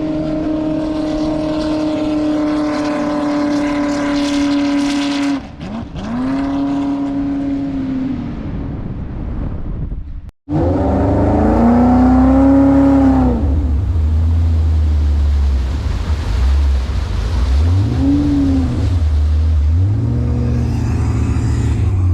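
Jet boat's V8 engine running at steady high revs for about five seconds, then easing off and swelling once. After an abrupt cut, it revs up and down over a deep rumble, with a couple of short rev blips near the end.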